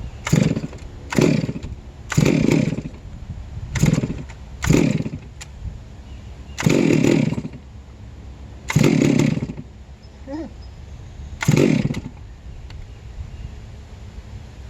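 Chainsaw revving in about eight short bursts, each under a second, with the engine dropping back between them.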